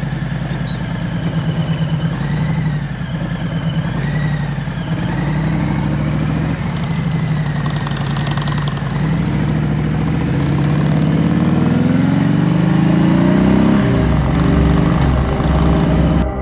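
V-twin motorcycle engine running on the road, with wind noise over the microphone. About two-thirds of the way through, the engine pitch climbs steadily as the bike accelerates, then dips.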